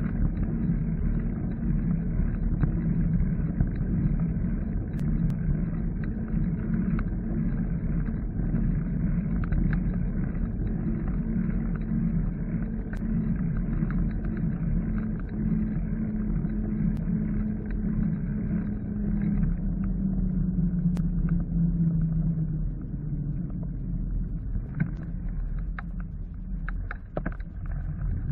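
Muffled, steady rumble of riding a bicycle, picked up by a bike-mounted action camera: wind and tyre-on-road noise with a low hum that sinks slightly about two-thirds through. A few sharp ticks and knocks near the end.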